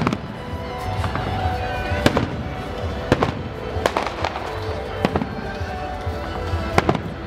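Fireworks display: aerial shells bursting with sharp bangs about once a second, over steady music.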